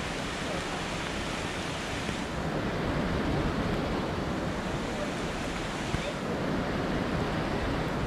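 Steady rush of a fast mountain stream, with wind on the microphone. The hiss of the water softens for a few seconds in the middle.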